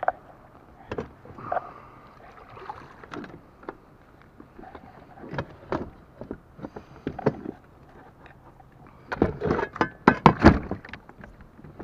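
Clicks and knocks of a kayak's pedal drive being handled and fitted into the hull, with a burst of louder clattering knocks about nine to ten and a half seconds in.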